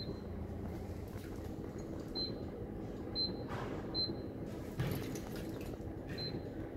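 Short, high electronic beeps from a Royal Vision Vendors bottle drop vending machine's keypad, five of them spaced irregularly, over a steady low machine hum. A dull knock comes just under five seconds in.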